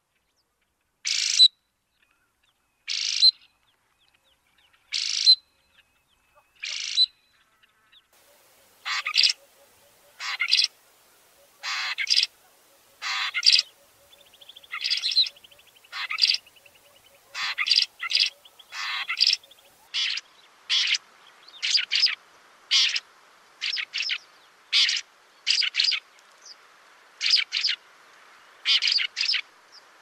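Somali fiscal (Lanius somalicus) calling: short, harsh, high calls, one about every two seconds. From about eight seconds in the calls come quicker, one or two a second, over a faint background hiss.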